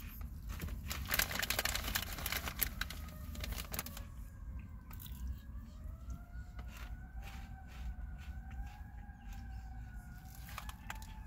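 Cat licking its paw and washing its face close by: crackly licking clicks, thickest in the first few seconds. From about four seconds in a faint siren wails, slowly rising and falling, over a low steady rumble.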